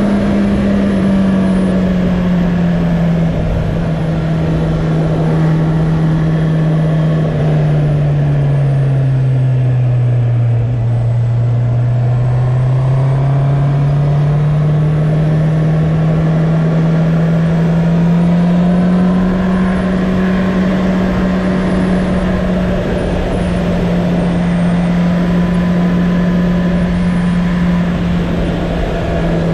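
2019 Honda CB650R inline-four engine heard from on board while riding. The engine note drops for the first ten seconds or so as the bike slows, climbs again as it picks up speed, then holds steady at a cruise, over wind and road noise.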